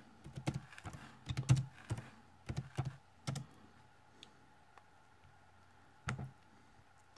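Typing on a computer keyboard: a quick run of key clicks for about three and a half seconds, then one more click about six seconds in.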